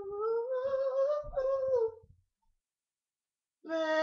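A man singing unaccompanied in a high voice, holding one long note that slides upward and breaks off about two seconds in; after a second and a half of silence the singing starts again near the end.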